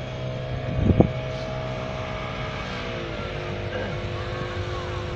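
Boat engines running with a steady drone. About three seconds in, the pitch of the drone drops as a small motorboat passes close alongside. There is a brief low thump about a second in.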